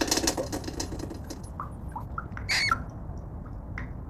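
Rats scratching with their claws, fading out in the first half-second, then a series of short squeaks, the loudest about two and a half seconds in.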